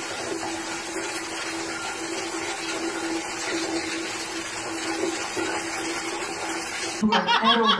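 Shower running: a steady hiss of water spray in a tiled shower stall. Near the end it cuts off abruptly and a person's voice takes over.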